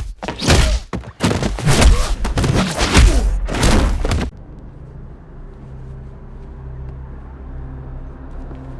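Rapid flurry of punch and kick impact sound effects, hard thuds one after another, that stops suddenly about four seconds in. A quieter low steady hum follows.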